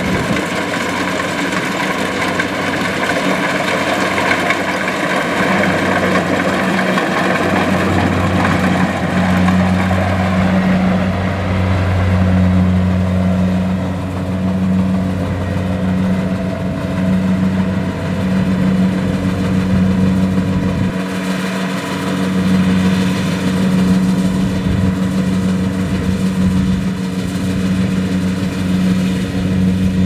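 Kubota DC-70 Plus rice combine harvester running under load while harvesting: a steady diesel engine drone mixed with the whir and clatter of its cutting and threshing machinery. The machinery noise is strongest over the first several seconds, after which the deep engine hum dominates.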